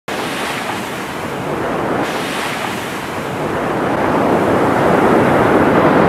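Sea surf washing up onto a sandy beach: a steady rush of breaking water that swells louder about four seconds in.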